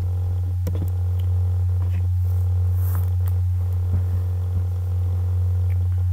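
Steady low hum in the recording, with a few faint clicks.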